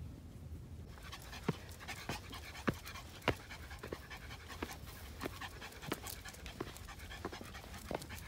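Small curly-coated dog panting as it climbs a stone-step trail, with irregular sharp footsteps on stone and dry grass starting about a second in.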